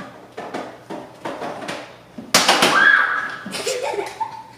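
Voices: short sounds in the first two seconds, then a loud, high-pitched held shriek a little over two seconds in, followed by a shorter high call near the end.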